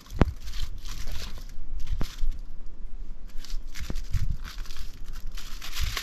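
Aluminium foil crinkling and rustling as it is handled over a campfire, with three sharp clicks roughly two seconds apart.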